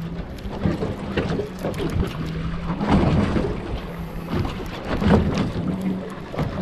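Outboard motor of a center-console fishing boat idling with a steady low hum, under irregular gusts of wind noise on the microphone.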